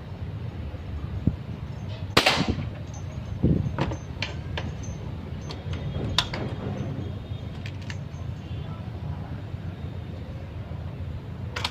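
A homemade M4-style air rifle firing: one shot with a short rush of air about two seconds in, then a dull thump and several sharp clicks over the next few seconds, with another sharp crack near the end, over a steady low hum.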